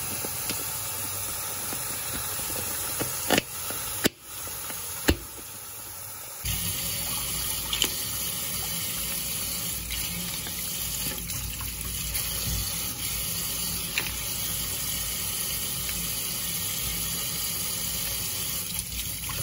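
Tap water running into a stainless steel sink while green mussels are washed and cleaned, with a few sharp clicks in the first five seconds. About six and a half seconds in, the water gets louder and fuller and then runs steadily.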